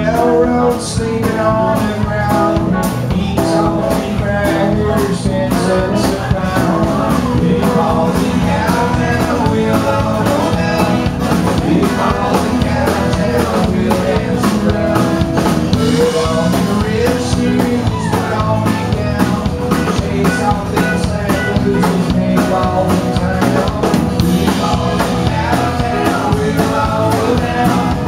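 Live country-rock band playing: strummed acoustic guitar, electric guitar, bass and a steady drum beat, with singing.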